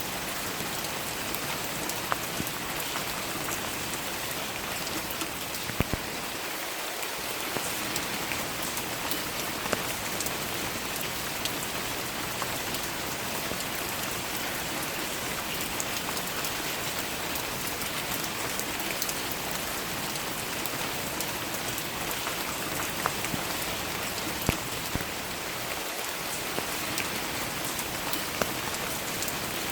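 Steady rain falling, a constant patter of drops with a few louder single drop hits scattered through it.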